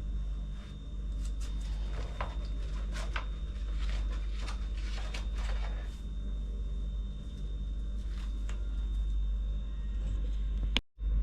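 Scattered rustling and soft knocking handling noises, thickest in the first half, over a steady low hum; the sound drops out for an instant near the end.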